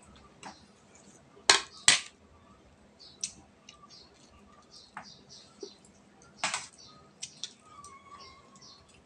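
Eating at a table: spoons and forks clinking and scraping on plates, with chewing and lip-smacking between. The sharpest clinks come about a second and a half in, again just after, and the loudest about six and a half seconds in.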